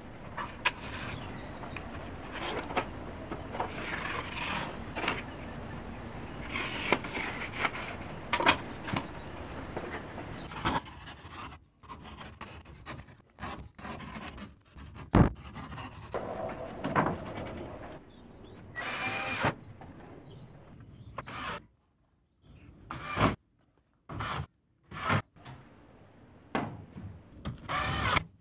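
Plasterboard cut by hand with quick, repeated rasping saw strokes for the first half. Then come scattered separate scrapes and knocks, and a short whir of a cordless drill driving a screw into the board.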